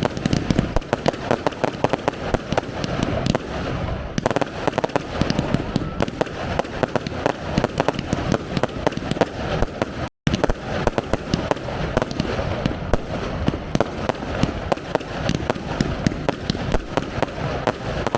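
Professional fireworks display: a dense, continuous barrage of bangs and crackling. The sound cuts out completely for a moment about ten seconds in.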